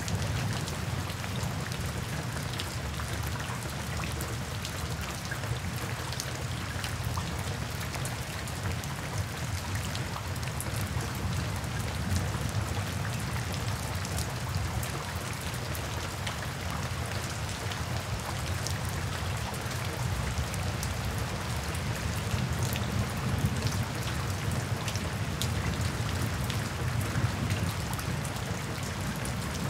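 Steady rain falling on forest foliage: a low, even rush with many individual drops heard as small sharp ticks.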